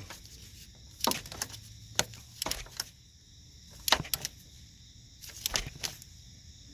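Wrench and deep socket tightening a car's new oil pressure sensor: a handful of separate sharp metallic clicks and clinks at uneven intervals.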